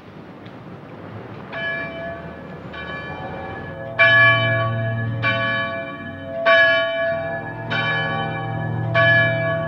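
Church bells ringing, a new strike about every second and a quarter with the ringing of each overlapping the next. They come in about a second and a half in, over faint street noise.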